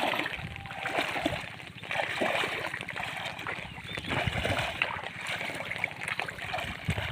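Irregular splashing and sloshing of water as a person moves through shallow floodwater around a fishing net.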